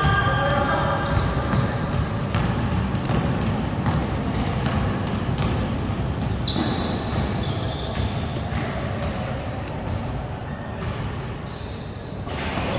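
A basketball bouncing and being dribbled on an indoor court floor, with players' footfalls and a few short high shoe squeaks a little past the middle, echoing in a large sports hall.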